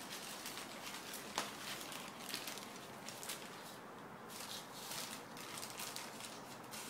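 A dog eating roast pork out of a plastic bag: irregular crinkling of the plastic and chewing, with one sharper click about one and a half seconds in.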